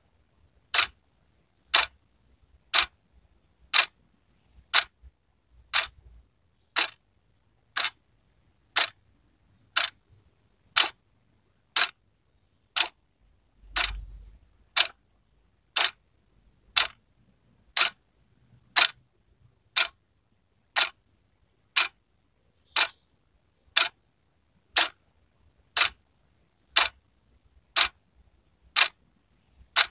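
Wall clock ticking steadily, one sharp tick about every second, with a faint low bump about halfway through.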